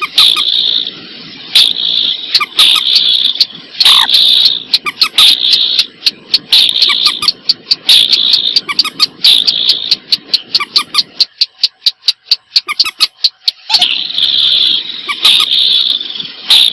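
Recorded bird calls: loud, repeated harsh bursts, a fast run of short clicking notes, several a second, from about five to eleven seconds in, a brief lull, then the bursts return.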